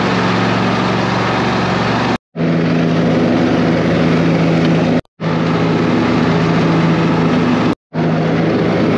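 Riding lawn mower engine running steadily as the mower is driven across the lawn. The sound breaks off three times in brief silent gaps where short clips are cut together.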